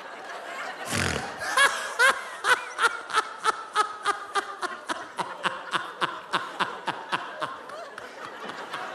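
A man laughing along at his own joke in a long, steady run of short pitched "ha" pulses, about three a second.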